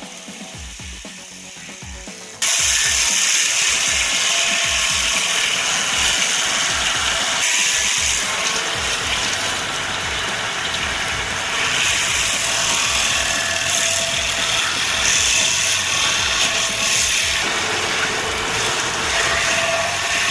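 Quiet background music with a low beat. About two seconds in, a loud powered cutting machine comes in suddenly: a harsh, steady grinding hiss that runs on over the music.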